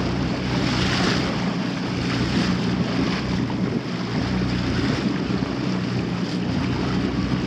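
Wind buffeting the microphone and water washing around a small sailboat, over a steady low hum.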